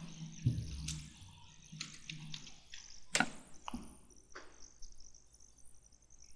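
Faint, scattered computer mouse clicks over low room noise, the loudest about three seconds in.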